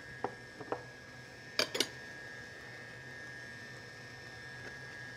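Stand mixer running on a low setting, a steady motor whine and hum, folding dry ingredients into batter. A few sharp glass clinks in the first two seconds, the loudest pair about a second and a half in.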